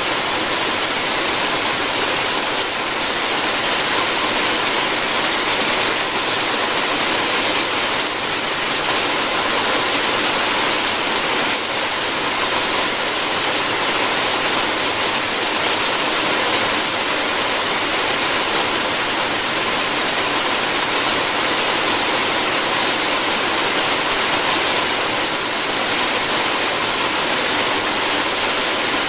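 Steady rain falling on a roof, an even, unbroken patter without pauses.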